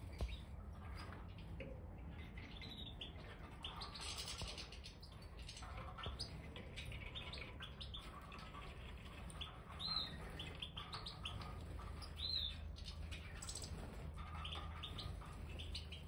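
Major goldfinches (European goldfinches) twittering and calling: scattered short chirps and quick sliding notes, with a couple of louder calls about ten and twelve seconds in, over a steady low hum.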